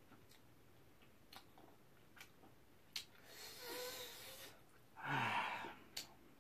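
A man eating and breathing between mouthfuls: a few faint mouth clicks, a long breathy sound about three seconds in, then a louder breathy sigh with a low falling hum of voice about five seconds in.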